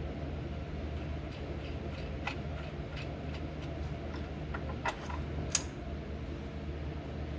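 Light metallic clicks and clinks of hand tools and bolt hardware, about three a second, ending in one sharper, louder metal click about five and a half seconds in, over a steady low hum.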